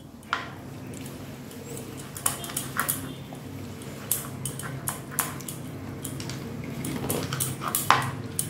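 Kitchen knife chopping soft fish roe on a plastic cutting board: irregular light knocks and taps of the blade meeting the board, with a steady low hum underneath.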